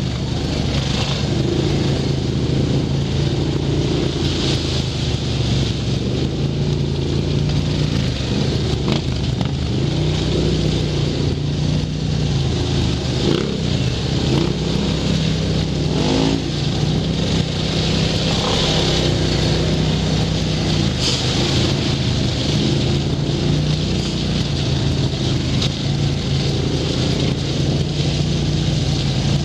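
Quad ATV engine running steadily at low trail speed, heard from the rider's own machine, its note wavering a little around the middle.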